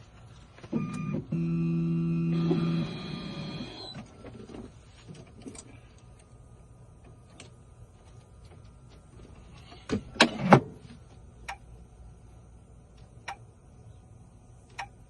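Key-cutting machine cutting a car key by code: a motor whirs with steady pitched tones for about three seconds, then runs quieter with scattered clicks, with a few sharp clicks about ten seconds in.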